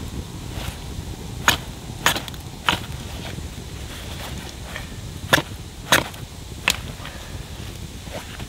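A blade chopping at a green wooden stick, whittling it into a pot hanger: sharp wooden chops in two groups of three, a little over half a second apart, with a few lighter cuts between.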